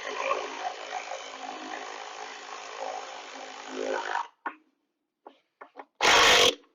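Slow-turning power ratchet running steadily as it tightens a quick-release bolt on a bunker board clip, cutting off about four seconds in. A few light clicks follow, then a short loud burst of noise near the end.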